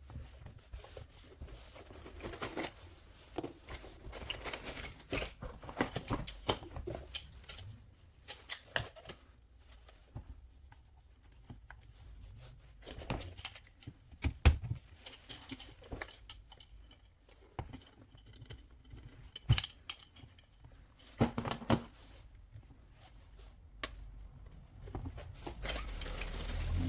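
Scattered handling noises: irregular clicks, knocks and rustling, with a few sharper knocks, and a low hum building near the end.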